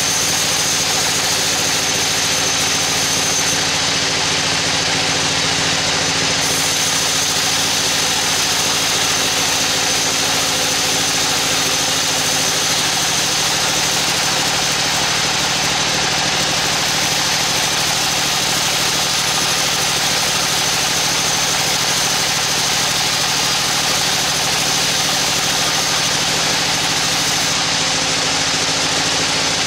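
Bandsaw mill running steadily, its blade sawing through a teak log, with a constant hum and a high whine. The hum's pitch shifts slightly about twelve seconds in.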